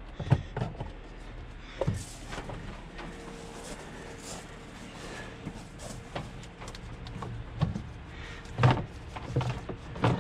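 Hard plastic body panel and airbox parts of a UTV being handled and shifted, with scattered knocks, scrapes and rattles. The loudest knocks come right at the start and near the end.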